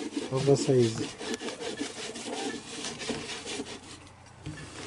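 Hands rubbing and smoothing wet mud over the body of a mud cookstove, a rapid run of scratchy rubbing strokes that fades out near the end.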